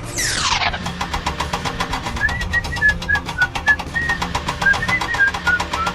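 Cartoon sound effects: a quick falling whistle-like swoosh at the start, then a rapid, steady ticking rattle like a small engine running, with short high chirps dotted over it.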